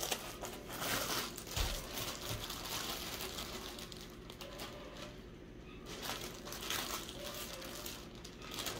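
Crinkling and rustling of deli meat packaging as sliced roast beef is pulled out and laid on the sandwich, with a soft low bump about one and a half seconds in.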